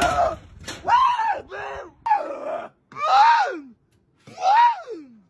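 A person's voice groaning in a run of about five drawn-out calls. Each call rises briefly and then slides down in pitch, and the last two are the longest.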